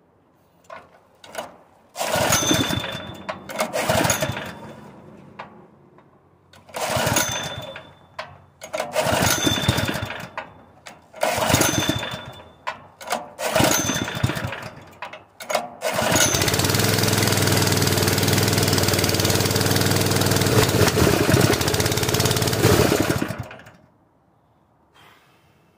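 Honda GX160 single-cylinder engine on a propane-converted air compressor, catching for a second or two and dying several times, then running steadily for about seven seconds before cutting out abruptly. The repeated stalling is a fault that the owner puts down to weak valve springs needing a valve job.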